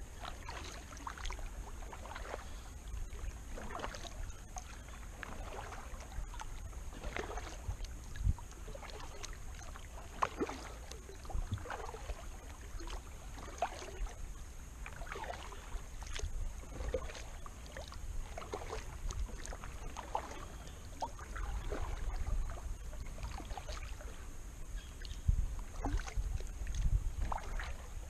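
Kayak paddle strokes dipping into calm water, a light splash and drip about once a second, over a low rumble of wind on the microphone that grows stronger near the end.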